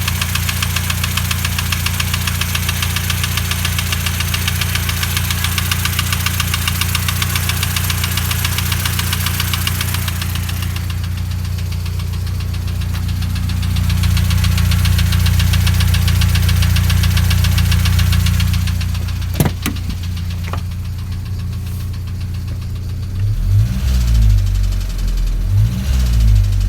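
ZMZ-405 Euro-3 engine running with a rapid, even metallic knock, clearest over the first ten seconds or so. One mechanic takes it for a worn piston-pin bushing; another could not say. A single sharp click comes about two-thirds through, and near the end the engine is revved up and down several times.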